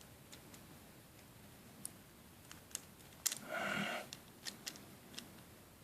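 Small plastic clicks and creaks as a plastic wheelset is forced out of an HO/OO model coach's bogie frame, with a brief louder rasping strain about three and a half seconds in.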